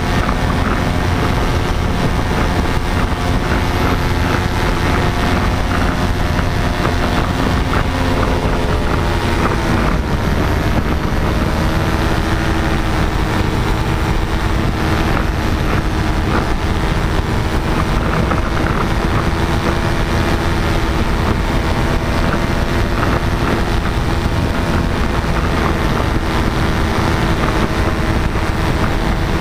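Paramotor engine and propeller running steadily in flight, with wind on the microphone. The engine note drops a little about ten seconds in as the throttle is eased, then holds steady.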